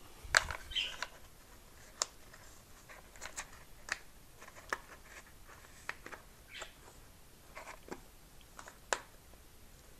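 Small clicks and short scrapes of hands working a servo control head into the servo frame in a carbon model-glider wing, at irregular intervals, with the sharpest knock about half a second in.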